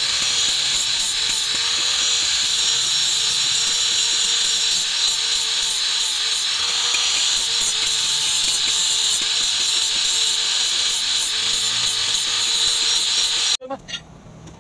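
Electric angle grinder with an abrasive sanding disc running steadily while grinding the wooden handle scales of a cleaver to shape, a high whine over a rasping grind, with the motor pitch wavering slightly under load. It cuts off about a second before the end.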